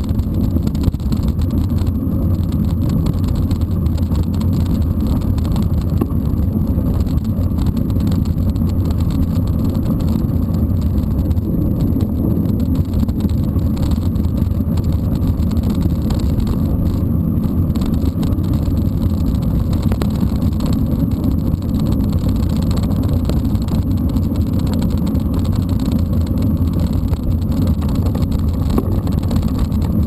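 Steady low rumble of wind buffeting an action camera's microphone, mixed with tyre noise from a mountain bike rolling over a dirt road.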